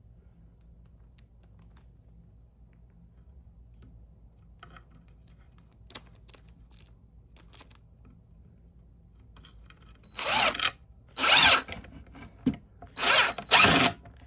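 A power tool run in four short bursts, each about half a second, after some ten seconds of light handling clicks.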